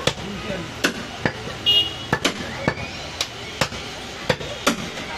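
Heavy meat cleaver chopping a mutton shoulder on a wooden log chopping block: about a dozen sharp strikes at an uneven pace of roughly two a second. A brief high ringing sound comes about a second and a half in.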